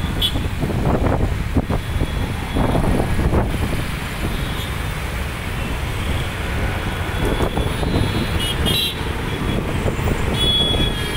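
Road traffic going by close at hand, a steady rumble of cars and trucks, with short horn toots about two-thirds of the way in and near the end.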